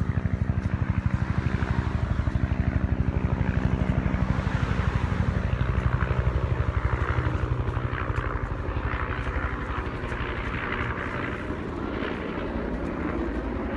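Low, rapidly pulsing rumble of a running vehicle, steady in pitch, easing about halfway through as a hissing noise comes up.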